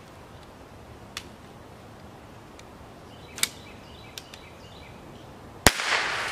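Chiappa Little Badger TDX single-shot break-open .22 rifle: a few light metal clicks as the action is worked and reloaded, then one sharp shot near the end with a short echoing tail.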